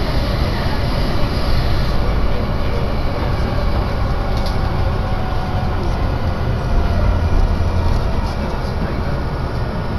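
Yokohama Line electric commuter train running, heard from inside the car: a steady, loud rumble of wheels and motors, easing slightly near the end.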